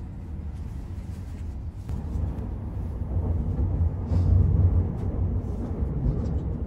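Low, steady rumble of a Shinkansen bullet train running, heard inside a passenger car. The rumble swells louder a couple of seconds in, then eases slightly.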